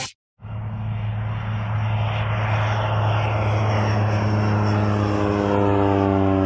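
Small propeller plane flying past low, its piston engine and propeller droning steadily with the pitch slowly falling. It cuts in about half a second in, after a moment of silence.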